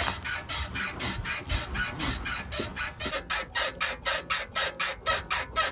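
Rapid rhythmic squeaking, about four or five squeaks a second, quickening and getting louder about three seconds in: the squeak of the rear floating bushing in a BMW 3 Series E90's suspension.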